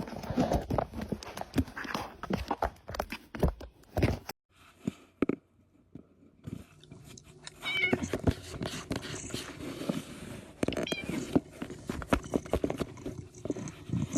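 Domestic cat meowing a few times among many short knocks and thumps, with a break of about two seconds near the middle.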